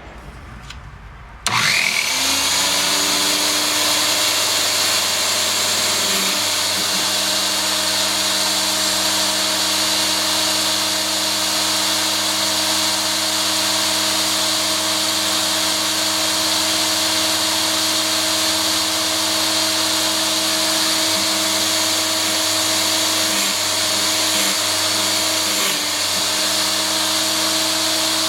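Power Fist electric chainsaw sharpener switched on about a second and a half in, its grinding-wheel motor spinning up with a brief rising whine and then running steadily, sharpening a chain. A few small wavers in the sound later on.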